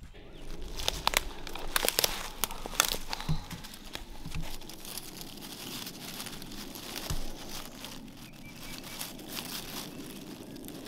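Dry oak leaf litter crackling and rustling as a hand works through it to pick morel mushrooms. There are sharp crackles in the first few seconds, then a softer steady rustle.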